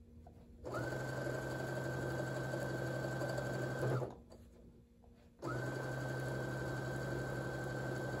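Brother electric sewing machine stitching a seam in two steady runs of about three seconds each, with a pause of about a second and a half between them; its motor gives a steady whine while it runs.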